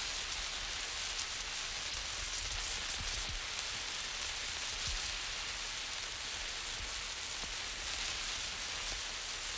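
Burning emergency flare hissing and crackling steadily, with a low rumble underneath.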